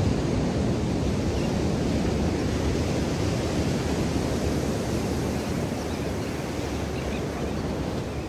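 Steady rush of ocean surf breaking and washing up on a sandy beach, with some wind on the microphone.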